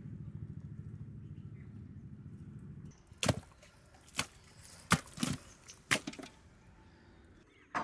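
A low, fluttering rumble for about three seconds, then about six sharp, unevenly spaced knocks, like hard strikes on wood.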